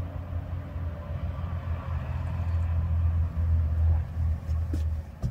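A steady low rumbling hum that swells and dips a little in level, with a couple of faint clicks near the end.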